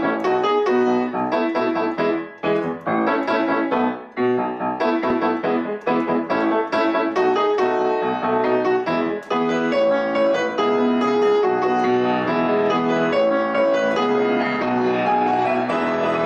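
Piano music: a steady run of notes, more broken up in the first half and smoother and more sustained after about ten seconds.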